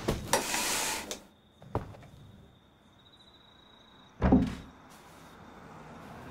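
Handling noises: a short scraping rush with a few clicks near the start, a single knock, then about four seconds in a loud dull thump as a drum is set down on a wooden dining table.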